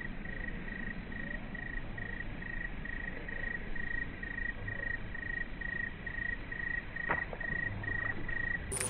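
An insect chirping steadily, about two even chirps a second, over a faint background hiss, with a single click about seven seconds in.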